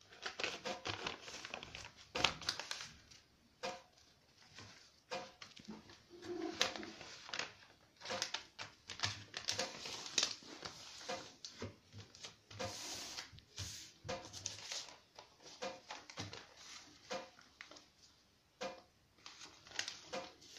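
Sheet of notebook paper rustling and being creased as it is folded by hand on a wooden table, with irregular taps and brushing of fingers on the paper and tabletop. A faint short tone recurs about every second and a half.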